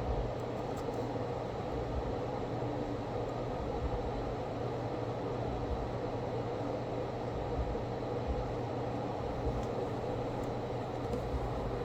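Steady machine hum and hiss, fan-like, with a constant low drone and no change.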